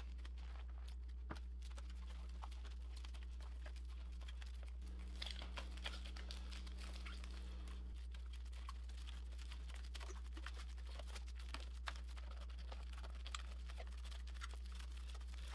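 Plastic stretch wrap crinkling faintly with many small crackles as it is pulled off its roll and wound around a glued stack of wood laminations, over a steady low hum.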